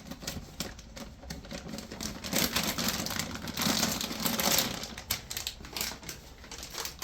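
Irregular rapid clicks throughout, with a louder rustling, scraping noise from about two and a half to five seconds in: handling noise.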